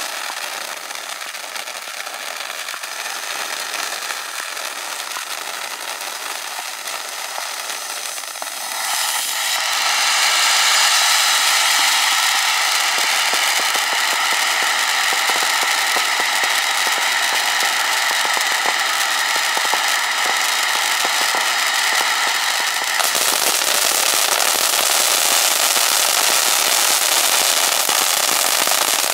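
Pick Me consumer ground fountain spraying sparks: a steady hiss with crackle that grows louder about nine seconds in and turns rougher around twenty-three seconds in.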